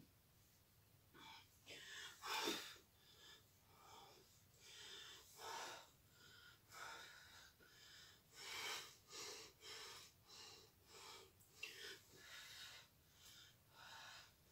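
A woman breathing hard from exercise: a quick, uneven run of faint puffing breaths through the mouth, about one to two a second.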